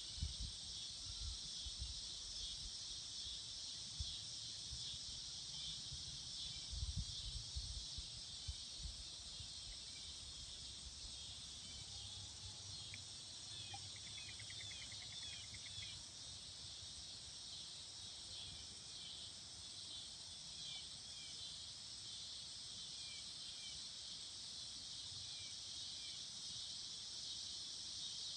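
Steady high-pitched chorus of summer insects. Low rumbling bumps come and go during the first nine seconds or so.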